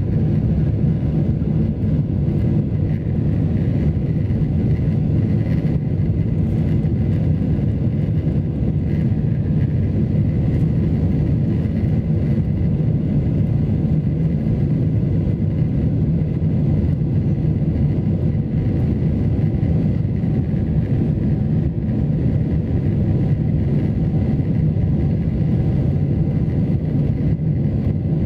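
Steady low rumble of a Boeing 747's jet engines and rushing air, heard inside the passenger cabin during the climb after takeoff, with a faint high whine held throughout.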